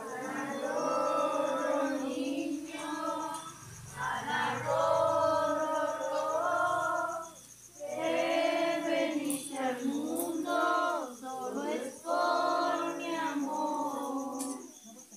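Several voices singing a song together, in long phrases broken by short pauses.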